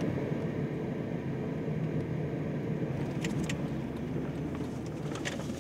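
Car driving along a road, heard from inside the cabin: a steady low engine and road hum, with a few light ticks a little after three seconds in.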